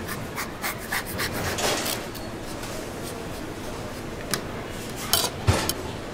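Fine rasp grater scraping lemon peel, then a pale hard ingredient, over a pot: a run of quick rasping strokes in the first two seconds and a few louder scrapes about five seconds in.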